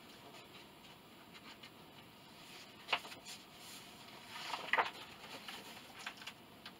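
Paper pages being handled and turned: a short sharp rustle about three seconds in, then a longer crinkling rustle around five seconds, with a few light ticks after.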